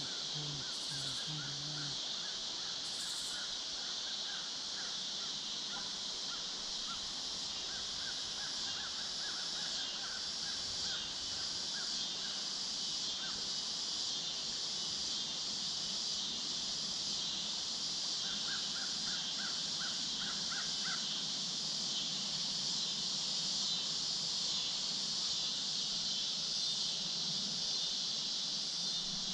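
Steady, shrill evening insect chorus of crickets and katydids. Over it a bird calls three times in runs of quick repeated notes: near the start, again about eight seconds in, and once more around eighteen seconds in.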